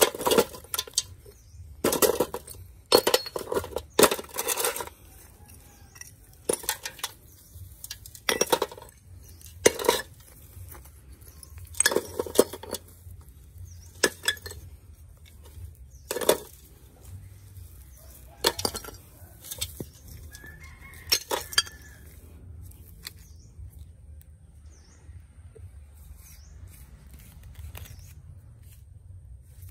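Brick chunks and rubble knocking and clattering against a metal pot as they are lifted out by hand: irregular clinks and thuds, a few of them loud, which stop a few seconds before the end. Faint bird chirps follow.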